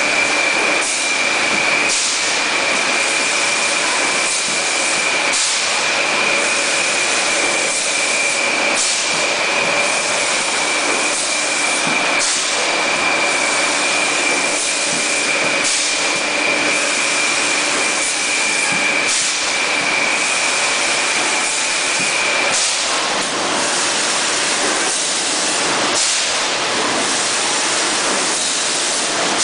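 A 6-litre PET bottle filling and packing line running: a steady, loud machinery noise with a high whine that stops about two-thirds of the way through, and short, sharp noises every one to three seconds.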